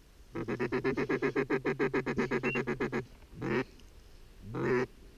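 Duck quacking: a fast, even run of about twenty quacks lasting under three seconds, then two single drawn-out quacks a second apart.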